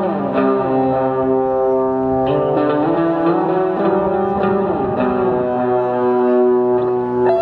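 Fender electric guitar played through an amplifier: long, sustained layered chords, with the notes gliding downward in pitch twice.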